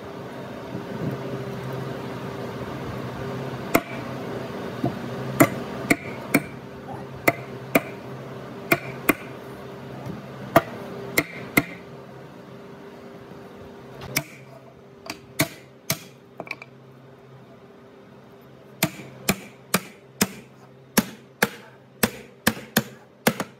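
Hammer knocking a solid-wood frame down onto a cabinet's joints: dozens of sharp, irregular blows, coming faster in quick runs near the end. A steady machine hum sounds under the first half and fades out about halfway.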